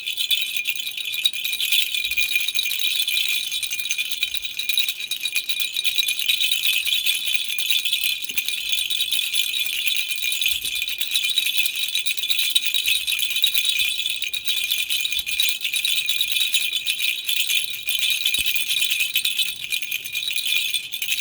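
A handheld toy rattle shaken continuously, a dense, steady, bright rattling with no pauses.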